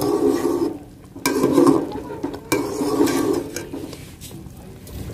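Slotted metal spoon stirring salt into rice and water in a metal cooking pot: three swishing stirring strokes, the second and third each starting with a clink of spoon on pot. After about three and a half seconds the stirring gives way to a quieter background.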